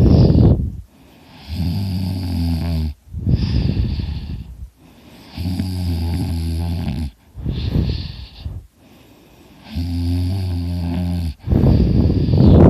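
A man snoring heavily in a steady breathing cycle about every four seconds. Each cycle has a low, rattling snore of about a second and a half and a harsher, breathy snort. The snoring is loud, and he likens it to a chainsaw.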